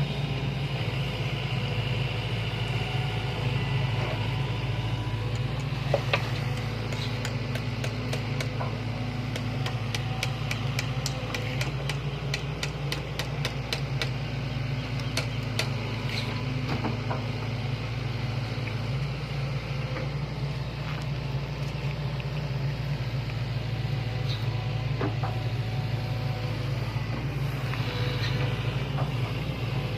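Sany hydraulic excavator's diesel engine running steadily, with a sharp knock about six seconds in and then a run of rapid clicks and knocks lasting roughly ten seconds.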